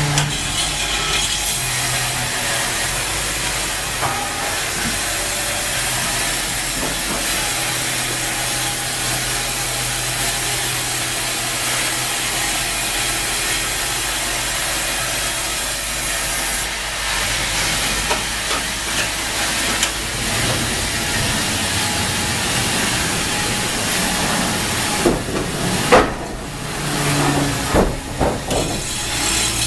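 Wravor band sawmill running and cutting through a log, a steady hiss of blade in wood over a low motor hum. A few knocks and clatters come near the end.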